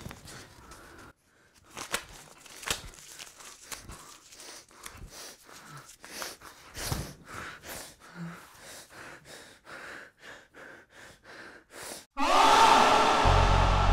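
A sheet of paper being crumpled and torn by hand, a run of short, irregular crinkling crackles. Near the end, loud music with a deep bass starts suddenly.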